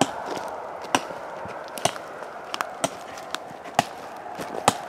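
Small hatchet chopping into a hawthorn trunk: a string of about eight sharp blade strikes on hard wood, at an uneven pace of roughly one every half second to second.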